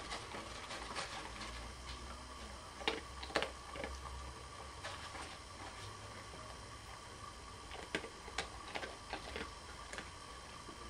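A dog nosing about the floor close by, with scattered sharp clicks and ticks, the loudest a pair about three seconds in, over a steady low hum.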